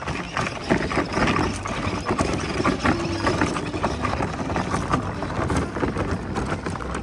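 Plastic wheels of a child's ride-on toy car crunching and rattling over loose gravel as it is towed along, with footsteps crunching on the gravel.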